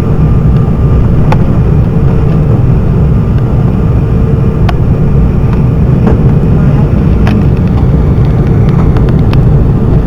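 Cabin noise inside an Embraer E195 jet airliner: a loud, steady low rumble of airflow and its two turbofan engines, with a steady hum and a few faint clicks over it.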